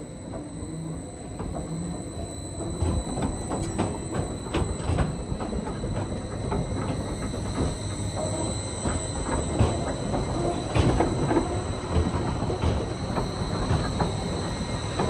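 Swiss mountain rack-railway train rolling along a curved station track. The wheels squeal with steady high tones over a low rumble, and irregular clacks and knocks come from the running gear on the rails. It grows louder over the first few seconds.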